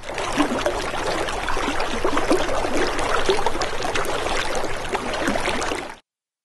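Water trickling and gurgling, a busy bubbling stream-like sound that starts suddenly and cuts off abruptly after about six seconds.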